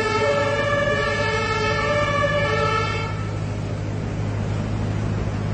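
Two-tone emergency-vehicle siren, the German 'tatü-tata', switching back and forth between two pitches. It stops about three seconds in, leaving a steady low hum and rushing noise.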